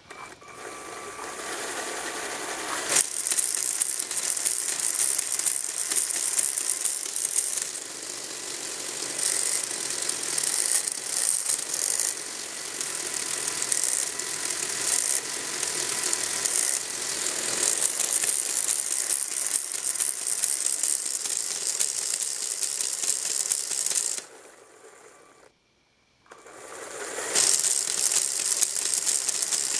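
Lego Technic gear train and flywheel governor driven at high speed by a Power Functions L-motor geared up 20:12 and 36:12: a steady whirring rattle of plastic gears. It cuts out for about two seconds near the end, then starts up again.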